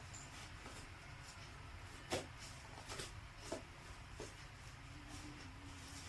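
Toy pieces being handled, giving a few light clicks and knocks, the loudest about two seconds in, over a low steady hum.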